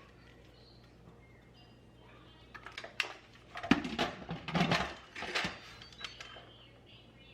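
Kitchen clatter: a run of knocks, clicks and scrapes of cookware and utensils being handled, starting about two and a half seconds in and busiest around the middle, then dying away.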